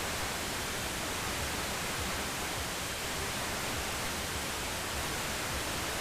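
Steady hiss of radio static from a receiver carrying no program audio.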